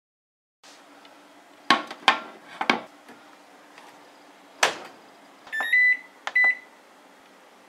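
Glass dish knocking against the inside of a steam microwave oven as it is set in, three quick clacks, then the oven door shutting with a louder knock. Two short electronic beeps follow as the oven's menu buttons are pressed.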